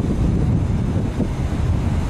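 Wind buffeting the microphone in uneven low rumbling gusts, over a steady rush of wind and sea at a ship's rail.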